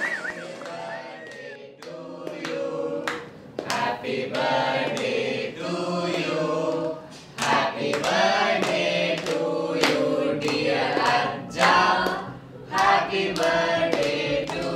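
A group of voices singing together in chorus, held notes, with hand claps.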